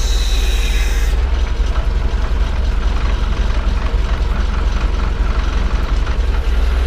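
Forklift engine running steadily with a heavy low note while the forklift tilts the fuel tank forward to drain rinse water. A brief hiss sounds at the start and stops about a second in.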